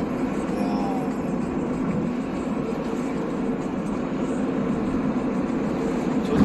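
Steady rumble of a car driving, road and engine noise running at an even pace.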